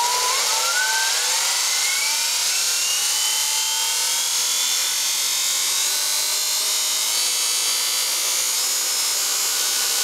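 ME-1003 brushed DC motor of an electric motorcycle spinning unloaded with no chain, throttled up slowly. Its whine rises in pitch over the first few seconds, then holds high and steady over a constant hiss.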